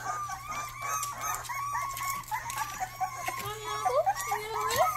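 A litter of young Rottweiler puppies whining and squeaking, many short, high, overlapping calls that slide up and down in pitch.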